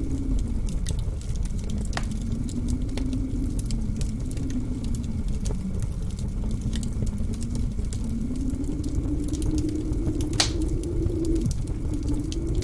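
Blizzard wind howling, its pitch slowly wavering up and down over a low rumble, while a wood fire crackles with scattered sharp pops; one louder pop comes about ten seconds in.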